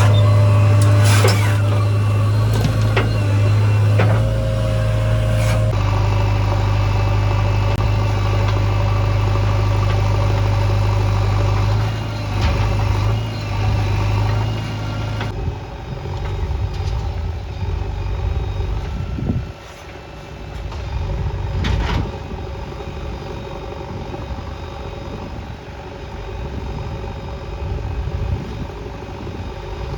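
Heavy diesel construction machinery running with a steady low hum. The engine note changes about halfway through, and a few knocks come later on.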